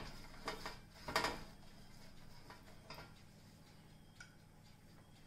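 Pastry brush swishing butter across a metal baking tray: a few quick strokes in the first second or so, then only faint light ticks.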